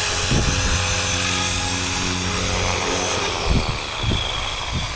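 Electric Blade Fusion 360 RC helicopter: its rotor and motor whine runs steadily. The pitch starts to fall about three seconds in, as if spooling down.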